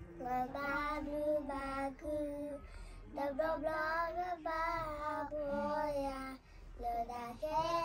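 A young girl singing a song. Her notes are held, and the phrases break briefly, with a short pause a little before the end.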